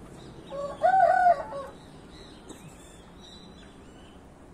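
A rooster crows once, a short arching call lasting just over a second that starts about half a second in. Faint high chirps follow.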